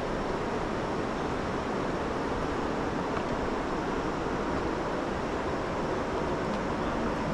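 Steady rushing of river water flowing past, an even noise with no distinct events.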